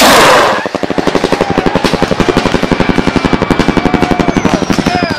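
Firework strobe rocket: the loud launch rush cuts off within the first second, then the strobe star goes off in a long, rapid, even rattle of pops.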